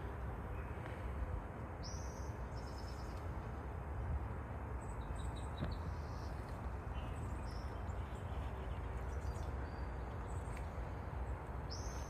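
Small songbirds giving short, high chirps, scattered a second or two apart, over a steady low outdoor background rumble.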